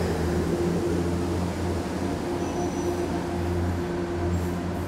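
A steady low droning hum with a few held pitches above it that swell and fade slightly.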